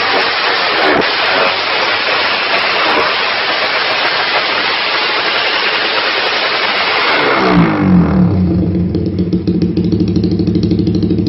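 Suzuki Raider 150 Fi single-cylinder engine breathing through a Kou Mahachai aftermarket exhaust, held at high revs with a loud rushing exhaust note. About seven seconds in it drops back to a steady, pulsing idle.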